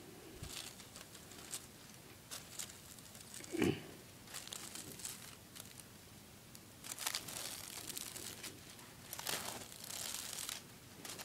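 Magnetic tape being pulled by hand out of a VHS cassette, the thin plastic tape crinkling and rustling in irregular bursts with small crackles, busier in the second half. A brief low-pitched sound about three and a half seconds in.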